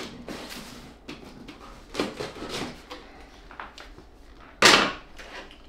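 A cardboard meal-kit delivery box being opened by hand: scattered rustles and scrapes of the flaps and packaging, with one short, louder scrape about four and a half seconds in.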